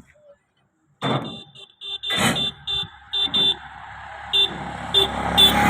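A vehicle horn giving a run of short beeps at uneven intervals, starting about a second in, while an engine runs and grows steadily louder.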